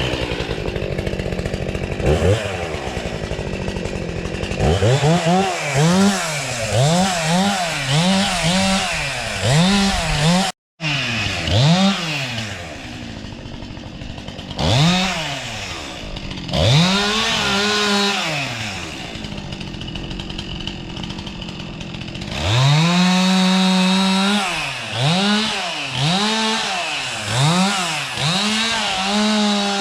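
Two-stroke chainsaw being revved up and down over and over, about once a second, held at full revs for a second or two a couple of times as it cuts into a tree being felled. The sound drops out for an instant about a third of the way through.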